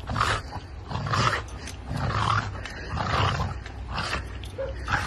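A dog growling in rough, repeated bursts, about one a second.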